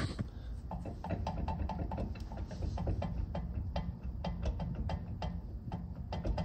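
Rapid, steady mechanical clicking, about five clicks a second, over a low steady rumble.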